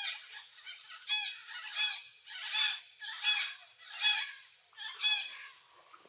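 A flock of parrots calling: a series of loud, harsh, repeated calls, about one every three-quarters of a second, that stop about five seconds in.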